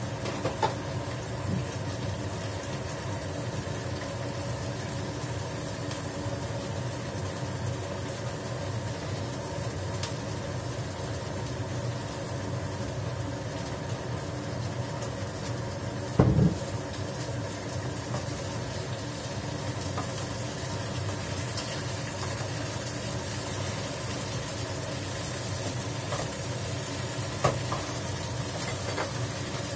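Tofu pan-frying in oil in a frying pan on a gas stove, a steady sizzle over a constant hum. One loud knock comes about halfway through, and a few lighter clicks.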